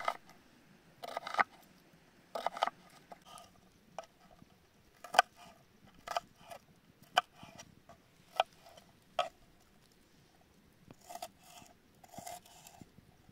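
Kitchen knife chopping onion on a wooden cutting board. It makes sharp single chops about once a second, with quicker runs of cuts near the start and near the end.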